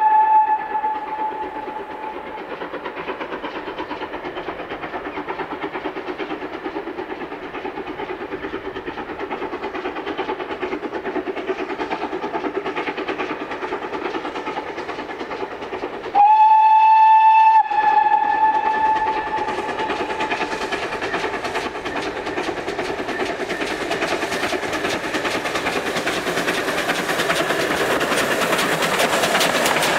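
GWR pannier tank steam locomotive's whistle sounding at the start and again in a loud blast about sixteen seconds in, between them the locomotive's exhaust beats and the train running on the rails. Near the end the exhaust and rail noise grow louder as the locomotive draws near.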